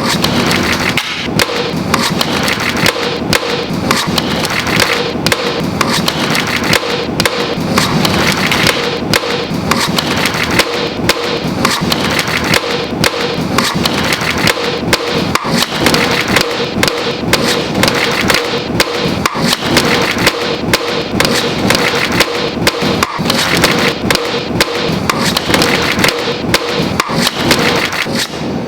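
A fast, steady beat made from the sounds of a deck of playing cards and its box, edited into a rhythmic pattern of sharp clicks, taps and thuds, with a faint held tone underneath.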